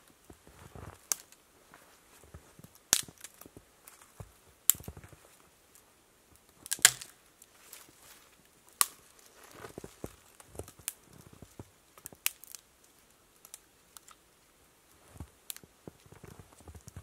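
Dry dead conifer twigs snapping as they are broken off by hand, with about eight sharp cracks spaced a second or two apart and the loudest about seven seconds in. Softer rustling of the branches comes in between.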